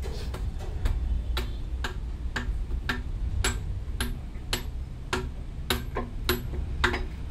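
Sharp metallic ticks at an even pace, about two a second, each with a brief ring, from hand work on the end of a hydraulic cylinder being dismantled, over a low rumble.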